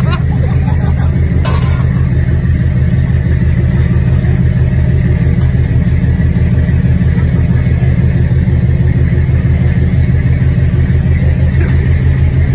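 Fishing trawler's engine running steadily: a loud, low drone with a fast, even pulse. There is one short knock about a second and a half in.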